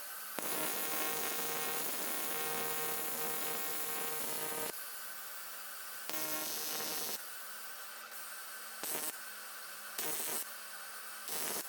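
An AC TIG welder's arc buzzing and hissing on an aluminium wheel rim, welding the crack. It runs in bursts: one of about four seconds, then a shorter one, then three brief ones.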